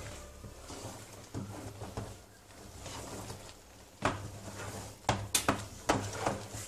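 Churro dough of flour and hot water being mixed by hand and wooden spoon in a stainless steel pot. Soft rubbing and scraping gives way to several short, sharp knocks and scrapes against the pot in the last few seconds as the dough thickens.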